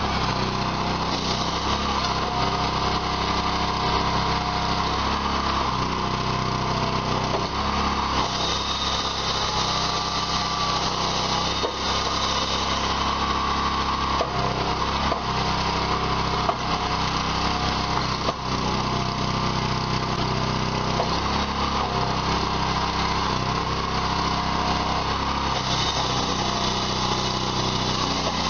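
Small engine of a compact firewood processor running steadily under load as logs are sawn and split, with a few sharp knocks of wood scattered through it.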